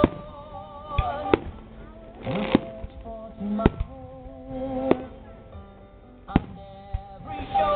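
Aerial firework shells bursting, about seven sharp bangs at irregular intervals over several seconds, with music and singing playing underneath.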